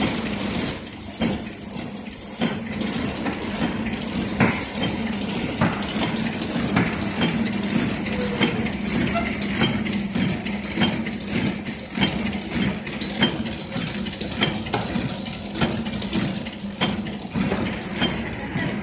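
Horizontal flow wrapping machine running: a steady mechanical hum with a sharp clack about once every second and a bit, and lighter ticks and clinks in between.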